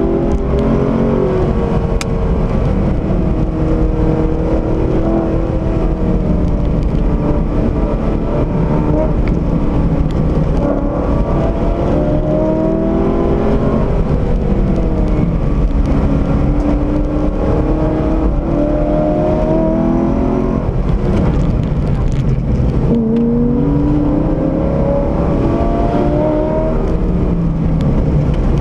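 Corvette C6 Z06's 7.0-litre V8 driven hard from inside the cabin, its note rising under acceleration and dropping back again and again at gear changes and braking. Steady road and wind noise lies beneath it.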